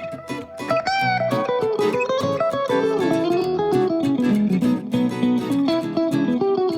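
Background music: plucked guitar playing a melody.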